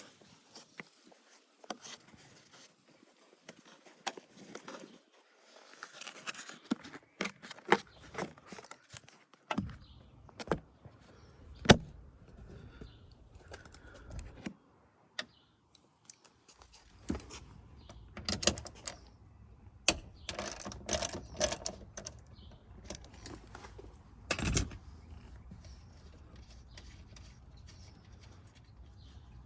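Irregular small metallic clicks and clinks from hand tools and nuts as the mirror's mounting nuts are worked off inside the door.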